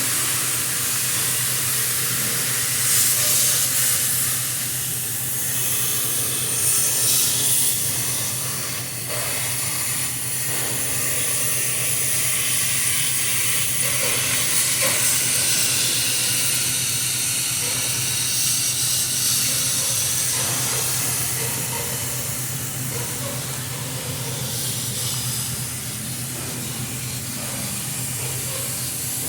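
Steady hiss of shop machinery over a constant low electrical hum, swelling slightly a few times.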